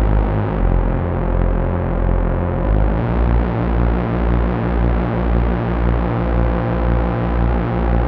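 Korg ARP 2600 synthesizer playing the String Sweetener patch from the original ARP 2600 patch book. A low bass note pulses about twice a second under a steady held higher tone.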